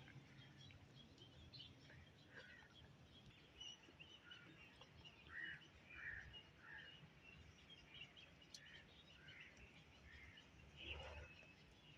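Faint outdoor ambience with birds chirping: many short, scattered calls throughout. About eleven seconds in there is one brief, louder, fuller sound.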